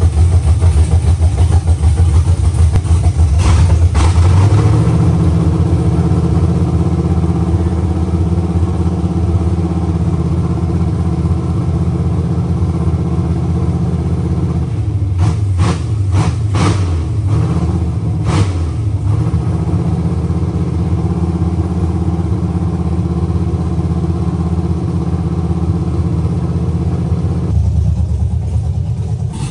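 Freshly swapped engine in a Chevrolet C10 pickup idling while it is tuned from a laptop. The idle steps up to a higher, steady speed about four seconds in, and a few sharp clicks come about halfway through.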